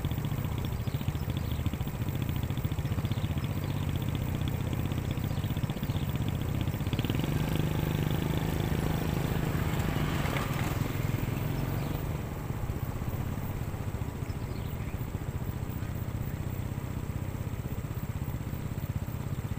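Caterpillar 120H motor grader's diesel engine running steadily while it grades a dirt road with its blade down. The sound swells for a few seconds around the middle, then drops a little as the grader moves away.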